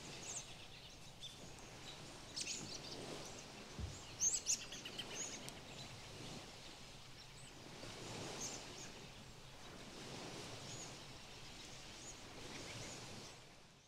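Birds chirping over a soft, steady outdoor background hush, with a few sharper, louder calls about four seconds in; the sound fades out near the end.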